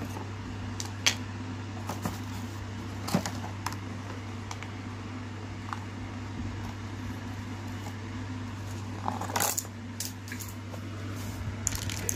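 Cardboard box and plastic toy airplane parts being handled as the toy is pulled out of its box: scattered light knocks, clicks and scrapes, with a longer rustle about nine seconds in, over a steady low hum.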